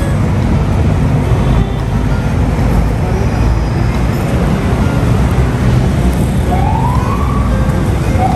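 Steady low rumble of road traffic; near the end a siren starts to wail, rising in pitch.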